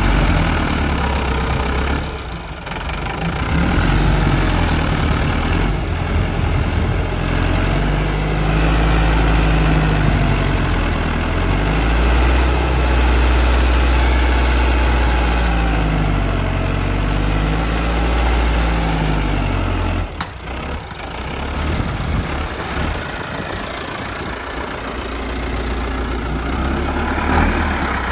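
Massey Ferguson 385 tractor's four-cylinder diesel engine running under load while pulling a tined cultivator through the soil, its pitch rising and falling for several seconds in the middle.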